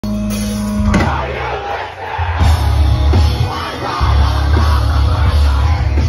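Live rock band playing loud through a festival PA, heard from within the audience. A held low note leads into a sharp hit about a second in, then heavy bass and drums come in hard. Crowd noise runs underneath.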